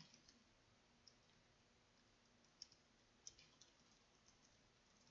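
Faint computer keyboard keystrokes, a few irregular clicks at a time, over near silence.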